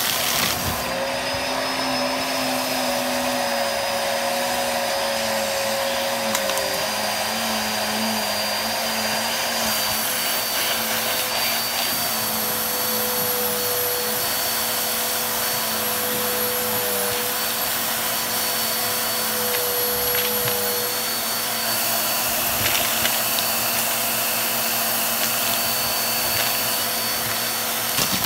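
Bissell vacuum cleaner running steadily through its hose nozzle, a rushing suction noise with a high motor whine that wavers slightly in pitch, and a few clicks as pieces of a pile of lint, coins and buttons are drawn in.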